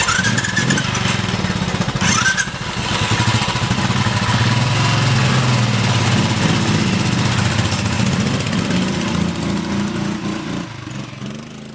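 Royal Enfield motorcycles' single-cylinder engines running as the bikes pull away one after another, a steady low beat that fades out near the end.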